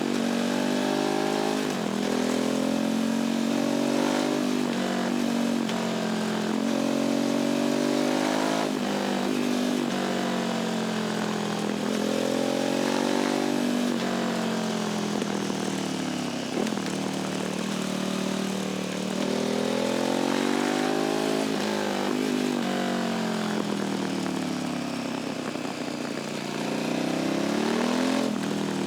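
Motorcycle engine and exhaust under way, picked up by a microphone at the bike's tail. The engine note climbs as it accelerates and drops back at each gear change or roll-off, over and over every two seconds or so.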